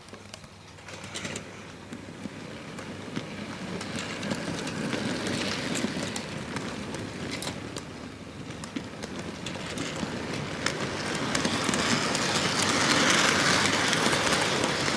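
HO-scale model freight train rolling past on the track: a steady rumbling whirr of wheels and running gear, scattered with sharp clicks at the rail joints, growing louder as the wagons come close.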